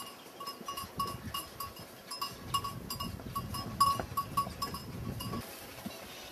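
A livestock bell on a grazing animal clanking in a quick, uneven rhythm, about three strikes a second, each strike ringing with the same few clear pitches. It stops about five seconds in.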